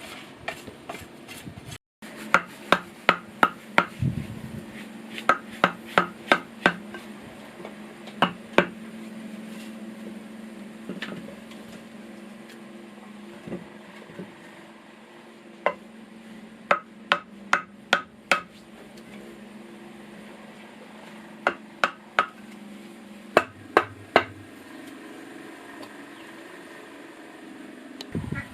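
Hammer striking wood in short runs of quick blows, two to five at a time, with pauses of a few seconds between runs.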